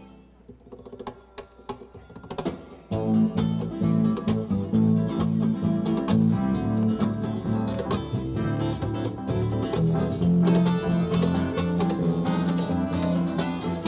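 A small live band playing, guitar to the fore, coming in loud about three seconds in after a short quiet gap.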